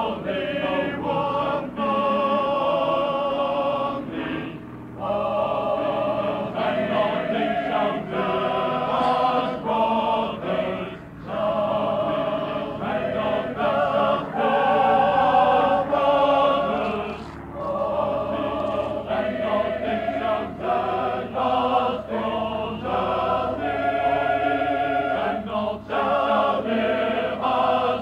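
High school choir singing a choral piece, held notes with vibrato, in phrases broken by short breaths every few seconds.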